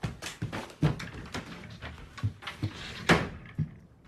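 Footsteps thudding on a wooden floor, a little over two a second, then a louder bang about three seconds in as a door is shut.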